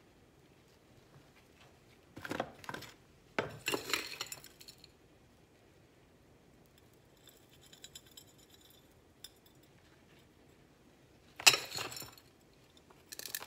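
Small hand trowel scooping potting soil and scraping and clinking against a ceramic pot, in a few short bursts, the loudest near the end.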